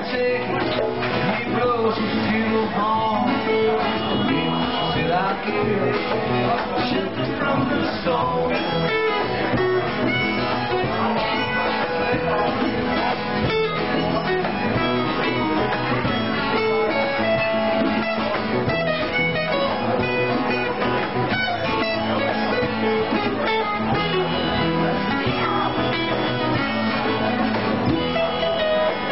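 Live band music: an acoustic guitar strummed over a drum kit, with a melody line on top.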